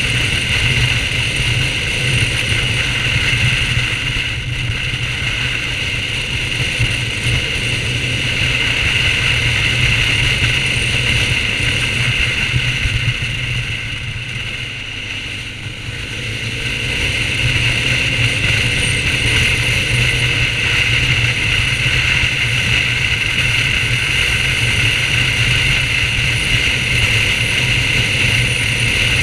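BMW R1200GS boxer-twin engine running at road speed under steady wind rush. About halfway through it eases off and dips, then rises in pitch as the bike accelerates again.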